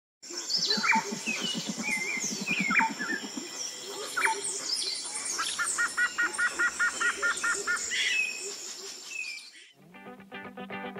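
A chorus of birdsong: several birds calling over one another, with short whistled notes sliding down in pitch, a quick run of about ten repeated notes near the middle, and a steady high thin whine underneath. Music with a guitar comes in near the end.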